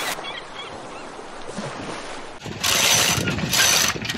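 A sailboat's mizzen halyard hauled by hand in repeated pulls, the line rasping through its block about once a second from roughly halfway in. Before that there are only faint squeaks and wind.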